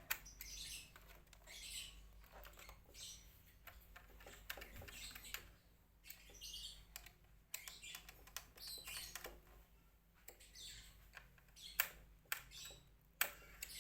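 Birds chirping faintly in the background, with scattered small clicks and taps of the hard-drive bay screws being screwed into the laptop, two sharper clicks near the end.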